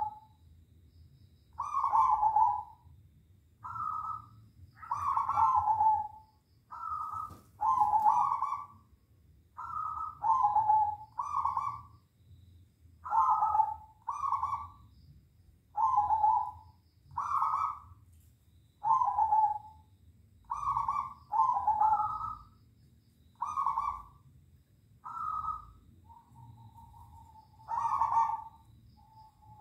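Zebra doves (perkutut) cooing back and forth: short pitched coo phrases, one every second or two, some loud and some fainter, as the birds answer each other.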